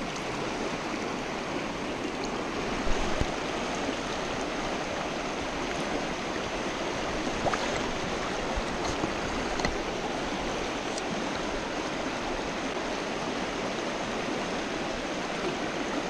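Shallow rocky mountain stream running over stones in riffles: a steady, even rush of water. A few brief knocks stand out, about 3, 7.5 and 9.5 seconds in.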